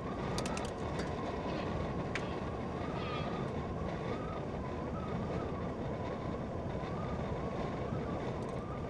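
Blizzard wind roaring steadily against a camper van, with a thin whistle that wavers up and down in pitch.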